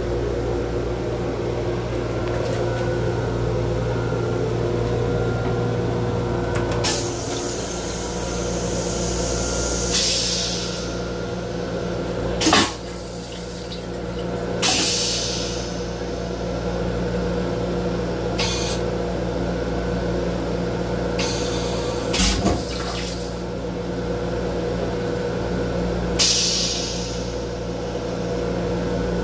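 Stainless-steel toilet in an M7 railcar restroom going through its flush cycle: several short hissing rinse sprays, each about a second long and a few seconds apart, with a couple of sharp knocks. A steady low hum from the railcar runs underneath.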